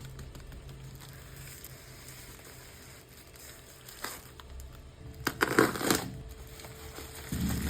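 Packaging crinkling and rustling as a mug is unwrapped: a single tap about four seconds in, then about a second of loud crinkling.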